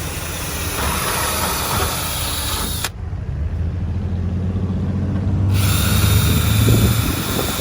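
A low, steady motor hum that grows louder toward the end and stops about seven seconds in, with a sharp click near the three-second mark.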